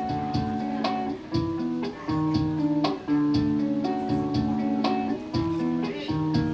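Guitar being strummed, chords ringing between repeated strokes.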